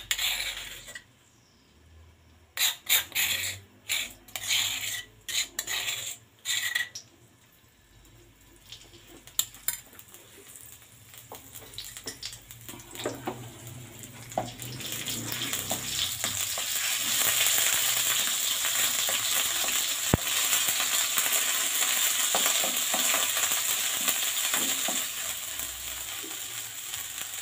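A spoon scraping pounded spice paste out of a stone mortar in a series of short strokes, then the paste frying in hot oil in a wok: a sizzle that builds over several seconds to a steady hiss, with a wooden spatula stirring it.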